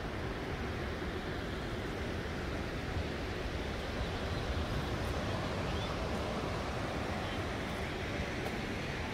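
Steady outdoor rushing noise with a low, fluttering rumble underneath, even throughout.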